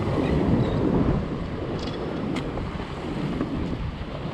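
Wind buffeting the microphone in gusts over surf washing against jetty rocks, with one sharp click about two seconds in.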